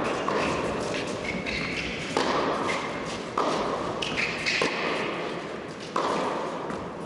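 Tennis ball struck back and forth by rackets in a rally: sharp pops about every second and a half, each echoing around a large indoor hall.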